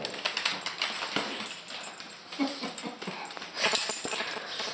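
A small dog's claws clicking and skittering on a hardwood floor as it hops and scrambles about.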